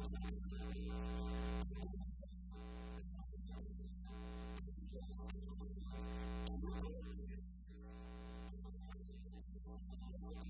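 A man's voice over a steady electrical mains hum.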